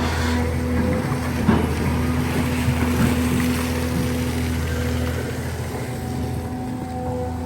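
Diesel engine of a long-reach excavator running steadily under hydraulic work, with a deep hum and a few faint knocks. The low hum eases about five seconds in.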